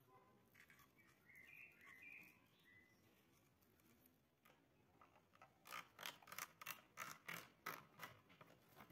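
Faint handling noise of string and plastic: a run of about ten short scratchy rasps in the second half, over near silence.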